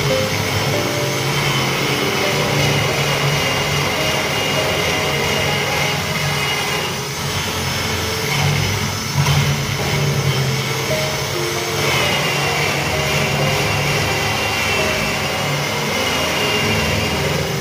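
Electric drill running steadily with a high whine as it bores a lock mortise into the edge of a wooden door through a clamp-on jig, under background music.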